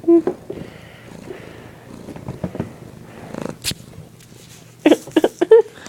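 Domestic cat purring steadily close to the microphone, with a short sound at the start and a few short, louder sounds near the end.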